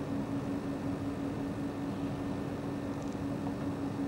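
Steady machinery hum: one constant low drone over an even background noise, unchanging throughout.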